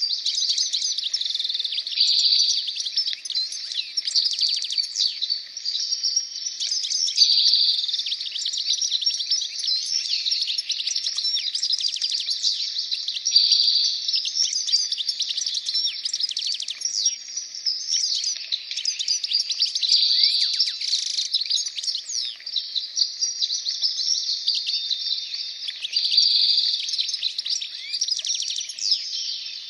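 A dense chorus of many small songbirds chirping and singing at once, with quick trills and short whistled glides that never stop, swelling louder every five or six seconds.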